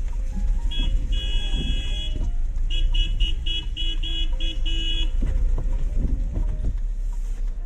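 A vehicle horn sounding in traffic: one long toot of about a second and a half, then a quick run of about eight short toots, three or four a second, over a steady low rumble of the car moving slowly.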